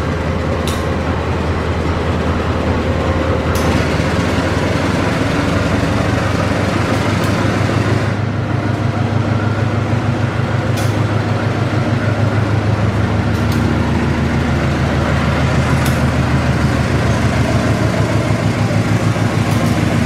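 CC 201 diesel-electric locomotive passing close by at low speed as it departs with a train of retired electric multiple-unit cars. Its diesel engine drones steadily and grows louder toward the middle, with a few sharp clicks.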